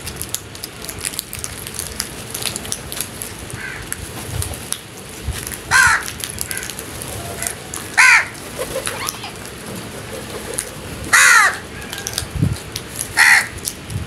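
House crows cawing: four loud, harsh caws and a fainter one, a couple of seconds apart, each falling in pitch, the third loud one drawn out longer than the rest.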